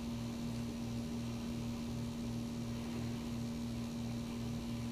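Steady electrical hum with a low, evenly pulsing throb beneath it and a faint hiss.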